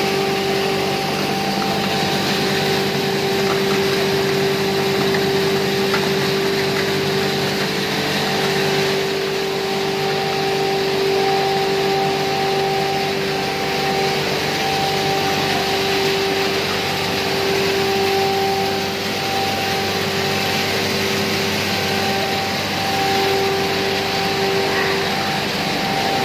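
ACM pulveriser mill and its blower fan running steadily while grinding maize into powder: a loud, constant whirring with a steady hum.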